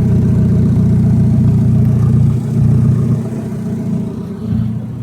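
2001 Dodge Neon's 2.0-litre four-cylinder engine running just after starting, its no-crank fault bypassed; the sound eases a little about three seconds in.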